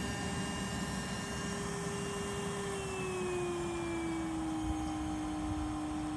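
Bee vacuum running steadily with an even whooshing of drawn air, its motor hum dropping a little in pitch about three seconds in and then holding.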